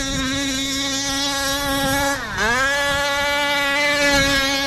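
Losi 5ive-T's 45cc OBR two-stroke gas engine running at high revs. The revs dip briefly about two seconds in, then climb back and hold high.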